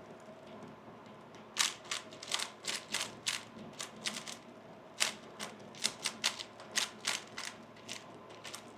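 A 3x3 Rubik's Cube turned fast in a speed solve: after a quiet start, a run of sharp plastic clacks begins about a second and a half in, several a second at uneven spacing.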